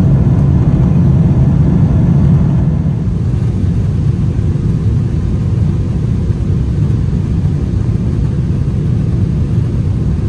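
Cabin noise of a Boeing 777-300ER in the climb after takeoff: the steady low rumble of its GE90 engines and the airflow past the fuselage. The rumble drops slightly about two and a half seconds in.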